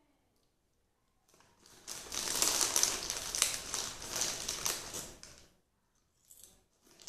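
Crinkling and rustling of a snack wrapper being handled. It starts about a second in and stops after about four seconds, full of small crackles.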